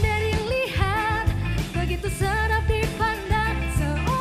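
A young woman sings a pop song into a microphone, holding notes with vibrato, over a live band with bass and drums.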